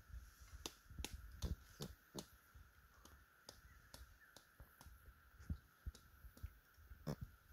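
Faint, irregular crackles and snaps of dry leaves and twigs, a dozen or so short clicks scattered through, over a faint steady hum.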